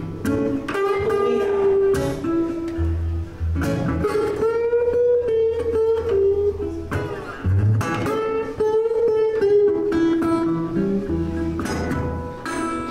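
Metal-bodied resonator guitar played blues-style: a picked melody with some notes gliding in pitch, over low bass notes.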